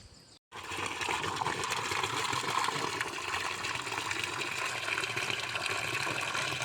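Water pouring steadily from a solar water pump's discharge pipe into a container, starting abruptly about half a second in. This is a timed discharge test of the pump's flow, which measures about 4 litres in 10 seconds.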